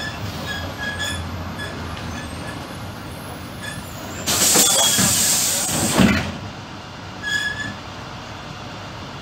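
PAZ 4234-04 bus's diesel engine idling while the bus stands, heard from inside. A loud hiss of compressed air from the bus's air system lasts about two seconds in the middle, with a few short high squeaks before and after it.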